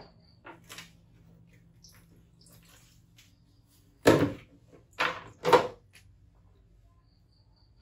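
Handling noises in a small tiled bathroom: a few faint knocks, then three short, loud knocks and splashes about four, five and five and a half seconds in, as a plastic stool is tipped on the tile floor and a wet baby macaque is handled during its bath.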